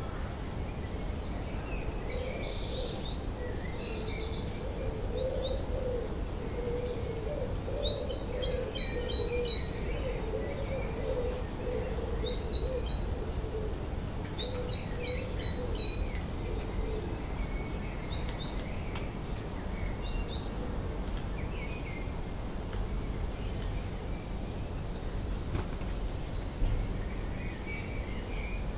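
Dawn chorus of garden birds: several songbirds singing over one another. In the middle there are bright runs of rapidly repeated high notes, with a lower wavering call and a constant low background rumble beneath.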